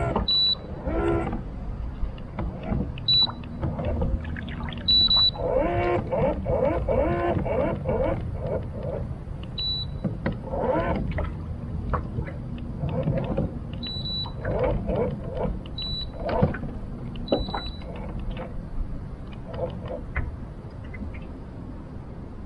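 Wind buffeting the microphone as a constant low rumble. Short, high electronic beeps come about seven times at irregular gaps, and lower wavering tones come and go in between.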